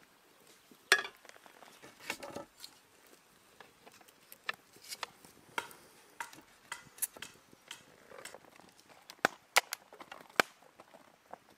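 Wood campfire crackling, with irregular sharp snaps and pops; one louder knock about a second in.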